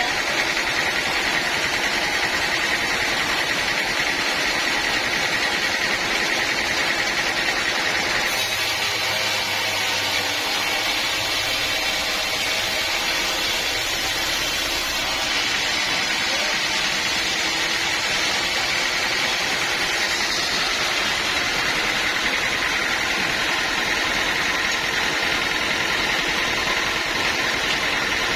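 Sawmill machinery running steadily, a constant mechanical noise with a steady whine. A deeper hum joins for several seconds about a third of the way in, then drops away.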